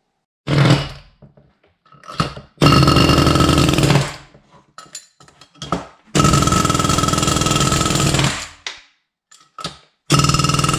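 Pneumatic air hammer with a drift driving worn valve guides out of a UMZ Evotech cylinder head. It comes in several bursts of rapid hammering: two long ones of about one and a half and two seconds, short blips between them, and another burst starting near the end.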